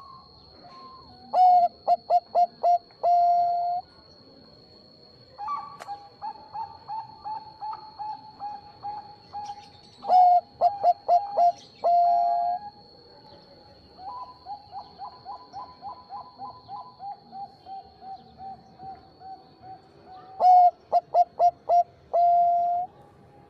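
Zebra dove (perkutut, Bangkok type) singing: three loud phrases about ten seconds apart, each a quick string of staccato coos ending in one long held note. Softer runs of rapid repeated coos fill the gaps between them.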